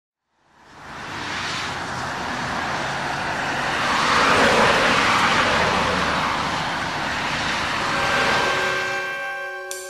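Road traffic noise, an even rush of passing cars, fades in, swells about four seconds in and dies away near the end. Sustained musical notes come in under it near the end.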